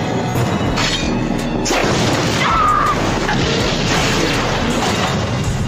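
Music from an anime clip's soundtrack, mixed with booming and crashing action sound effects.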